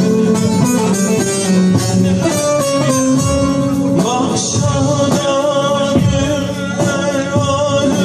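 Live Turkish folk music: a bağlama plays quick plucked notes, and a man starts singing about halfway through.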